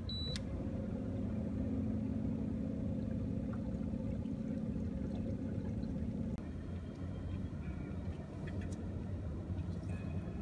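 Minn Kota electric trolling motor running with a steady hum for about six seconds, then stopping. After it, a lower steady rumble with a few light clicks.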